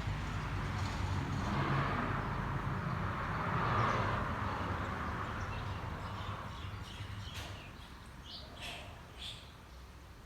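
A vehicle's hum swells and then fades away. In the last few seconds, birds give several short chirps.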